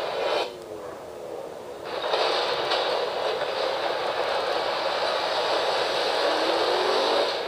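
Action-movie trailer soundtrack from a portable DVD player's small speaker, with no bass and no words: a dense rushing noise that dips for the first couple of seconds, then swells back and holds loud until it falls away near the end.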